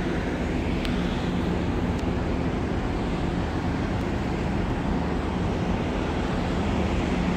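Ship engines and machinery running with a steady low drone, several deep hum tones over a rushing noise.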